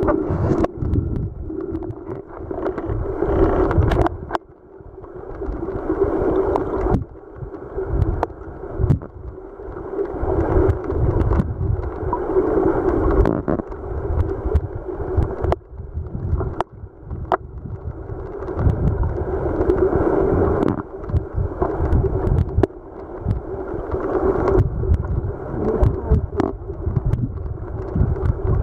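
Muffled rush of stream water heard underwater, rising and falling every few seconds, with scattered sharp clicks.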